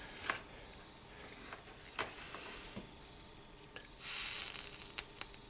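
Soldering flux sizzling as a hot soldering iron tip is pressed onto a fluxed copper wire end. A brief hiss comes about four seconds in, after a fainter one around two seconds, with a few light clicks from handling the iron and solder.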